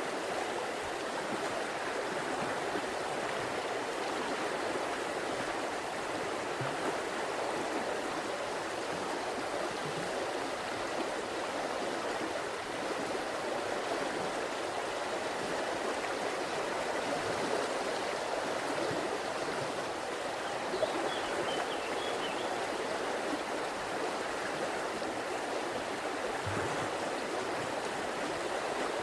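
River water flowing over rocks: a steady, even rush and gurgle of running water.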